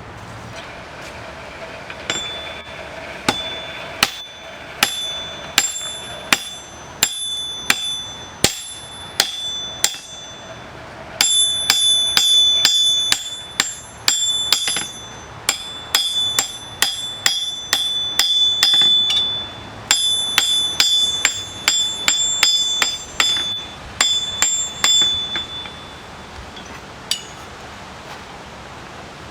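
Blacksmith's hammer striking steel on an anvil while forging a leaf, each blow giving a bright ring. Single blows come every second or so at first, then quick runs of strikes from about a third of the way in, stopping a few seconds before the end with one last lone strike.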